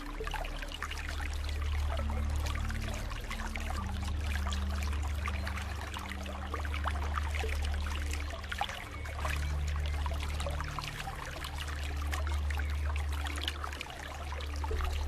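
Water flowing and trickling in a steady stream, a continuous splashy babble. Beneath it runs a low sustained tone that shifts pitch every few seconds.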